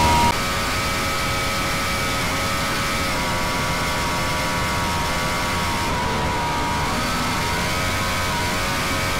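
Catamaran powerboat's engines running at high speed, around 80 mph: a steady engine drone over a hiss of wind and water, its pitch sagging and recovering slightly a couple of times as the speed varies. The level drops abruptly just after the start.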